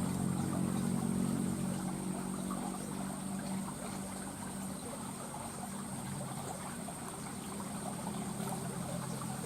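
A steady engine hum slowly fading away, with water trickling and lapping.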